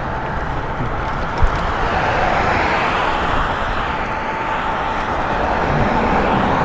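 Wind rushing over the microphone and road noise while riding an electric bike, with a steady thin whine and a single low thump about one and a half seconds in.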